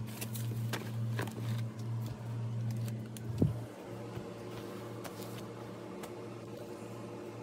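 Crinkling and rustling of a disposable diaper and its plastic bag being handled over a steady low hum. The crinkling is sparse and crisp through the first three seconds, and a single sharp knock comes about three and a half seconds in, after which the hum gets quieter.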